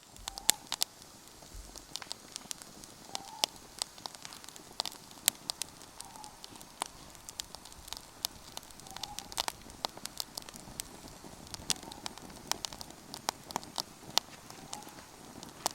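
Wood campfire crackling: many sharp, irregular pops and snaps over a steady soft hiss of burning.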